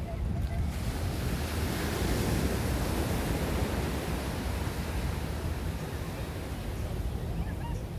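Surf washing onto a sandy beach, its hiss swelling about two seconds in and easing off, with wind rumbling on the microphone.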